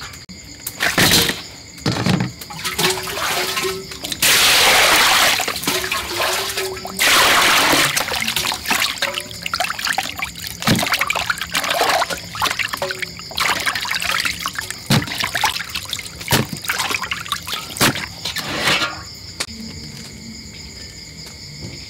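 Fish being washed by hand in a metal basin of water: water pours in twice, a second or two each time, amid repeated splashing and short knocks of the fish and hands against the basin.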